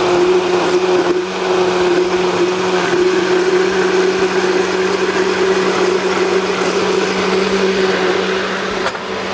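Electric countertop blender running at a steady speed, puréeing a liquid curry sauce of mango, coconut, spices and tomato paste thinned with a little water: an even motor hum under a rushing whir.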